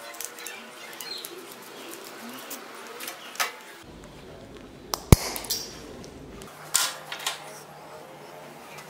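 Cordless drill whirring slowly with a drifting pitch for the first few seconds, then a single sharp snap about five seconds in as pliers cut through the twisted copper-silicon wire, with a few lighter handling clicks.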